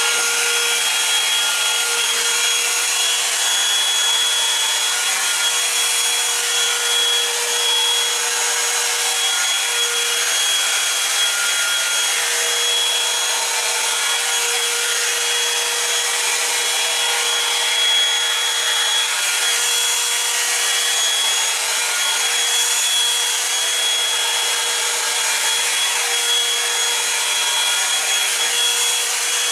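Revlon One-Step Hair Dryer and Volumizer brush running on its high heat setting: a steady, loud rush of air with a constant motor whine.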